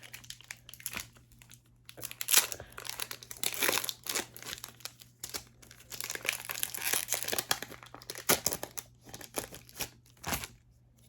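Foil-wrapped Pokémon card booster pack crinkling and tearing as it is ripped open and handled, in irregular bursts of crackle.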